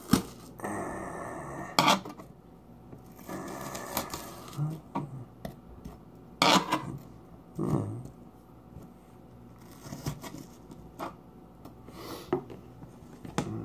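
Chef's knife chopping diced onion on a cutting board: irregular knife strikes against the board a second or two apart, with the blade scraping and sawing through the pieces between them.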